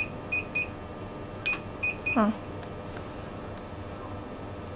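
BeautyMonster XM-3 plasma beauty machine beeping in short high beeps as it is operated in single-shot mode. There are two groups of three quick beeps about a second and a half apart, each opening with a click. A brief sound falling in pitch follows the second group.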